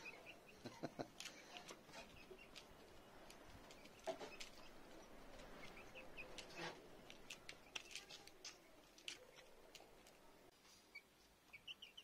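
Young chickens pecking grain from a plastic feeder dish: faint, irregular sharp taps of beaks on grain and plastic, with a few short high chirps.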